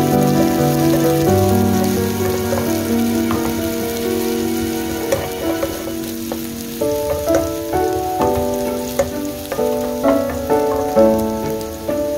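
Chopped green onion sizzling as it fries in oil in a wok, stirred with a wooden spoon, under background music. The music's held chords give way to shorter struck notes about seven seconds in.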